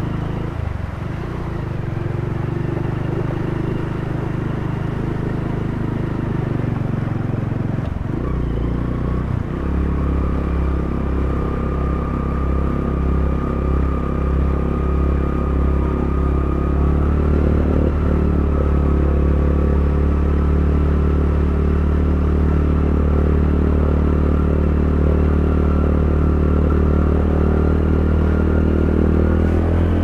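Motorcycle engine running steadily as the bike is ridden slowly through floodwater. Its note shifts about nine seconds in, then holds steady.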